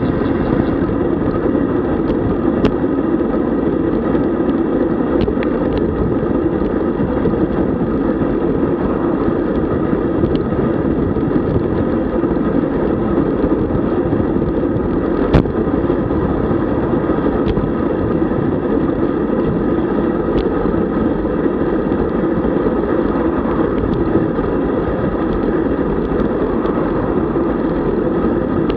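Steady rumbling ride noise of a road bicycle under way: wind and tyres on the road, with a few faint sharp ticks.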